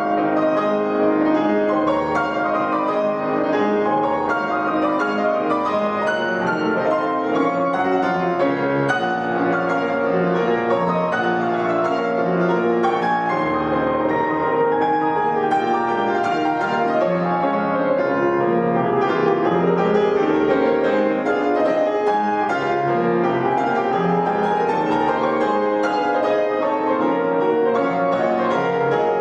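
Solo grand piano playing a fast, dense classical passage, with many notes at once and no pauses, at a steady loud level.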